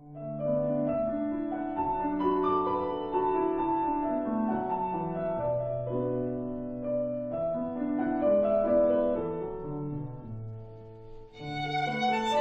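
Background music: sustained string and piano chords in a slow classical style, with a brighter, higher passage entering near the end.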